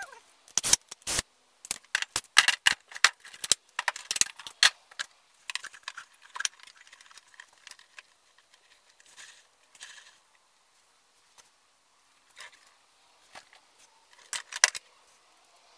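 Clicks, knocks and light rattles of small tools and parts being handled on a wooden workbench. They come thick and fast for the first few seconds, then only now and then.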